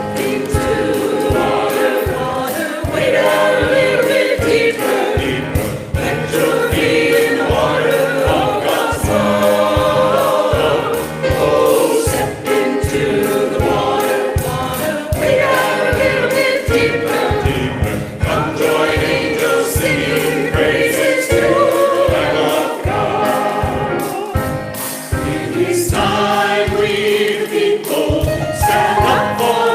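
Choir singing a gospel song over an accompaniment with a steady bass beat.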